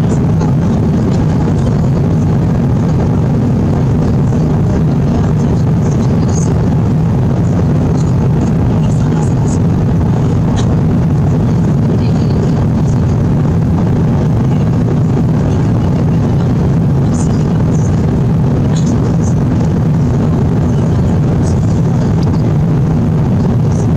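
Steady cabin noise of an Airbus A350 in flight: an even, loud rush of air and engine drone, heaviest low down, with a few faint high ticks now and then.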